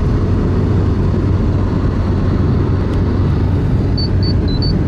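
Steady road noise and low drone of a car travelling on the interstate, heard from inside the cabin. About four seconds in, a quick run of short, high chirps sounds over it.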